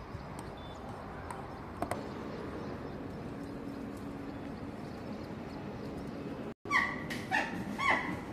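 Steady outdoor background noise with a few faint clicks. After an abrupt cut near the end it gives way to a run of short, loud animal calls, about two a second.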